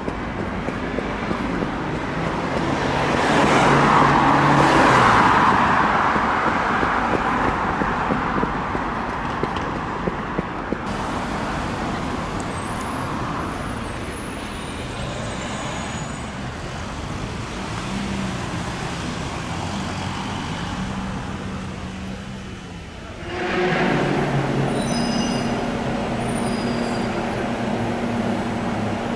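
Road traffic on a city street, with one vehicle swelling loud and fading a few seconds in. Near the end a bus engine runs close by with a steady low hum.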